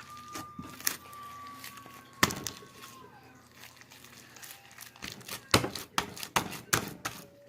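Homemade slime being squeezed and worked by hand, giving sharp clicks and pops of trapped air, one loud pop about two seconds in and a quick run of them near the end. A thin, steady high tone runs through the first three seconds and dips as it stops.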